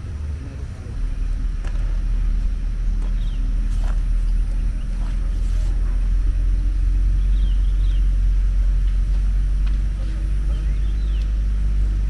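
Wind buffeting the microphone, a loud low rumble that starts about a second in, with small birds chirping faintly a few times over it.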